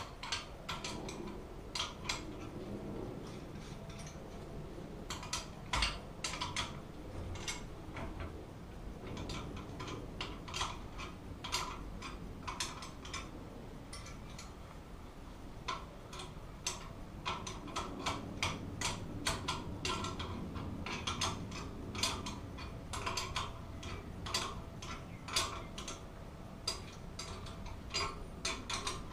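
Metal clicks and clinks from a wrench tightening nuts down the all-thread of a homemade motorcycle shock spring compressor, squeezing the spring. The clicks come one or two a second at an uneven pace.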